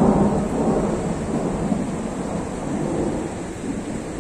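A roll of thunder, loudest at the start and rumbling on as it slowly fades, over the steady hiss of rain.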